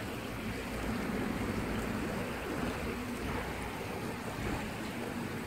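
Steady rushing background noise of a small river flowing, mixed with wind on the microphone, even and unbroken throughout.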